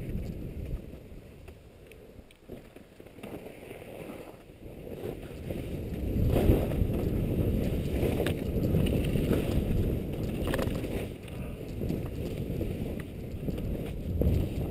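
Skis sliding and scraping over snow on a downhill run, with wind rumbling over the microphone; it grows louder about six seconds in.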